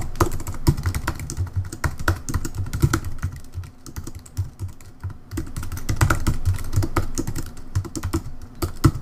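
Typing on a computer keyboard: fast, irregular keystrokes, slowing to a brief lull about halfway through before picking up again.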